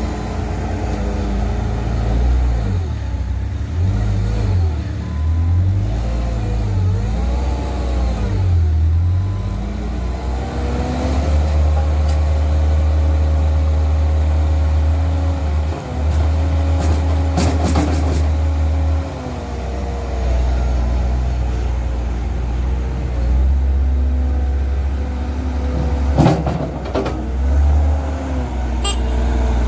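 Heavy machine's engine running, revving up and down several times in the first ten seconds, then holding a steady speed. A few sharp knocks come near the middle and again near the end.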